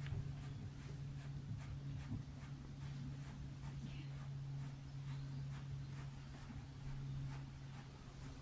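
Faint scratching clicks, about three a second, of hands working a tank connector and its rubber seal through the drilled hole in a plastic wheelie bin's wall, over a steady low hum.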